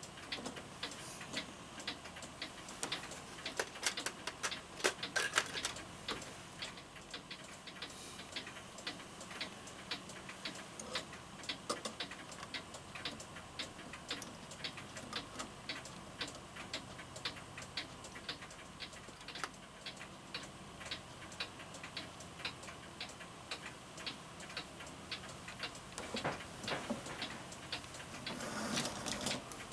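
Florenz Kroeber mantel clock movement ticking steadily, an even run of sharp ticks. A few louder knocks come a few seconds in, and a brief rustling handling noise comes near the end.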